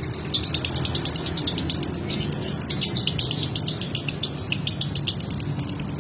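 Male lovebird singing a long, unbroken run of rapid, crackling high chirps, the 'konslet' song style named for its resemblance to an electrical short-circuit.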